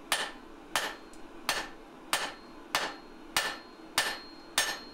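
Hand hammer striking a damascus steel billet on an anvil in a steady rhythm, eight blows about 0.6 s apart, each ringing briefly. The smith is tapering the billet's end.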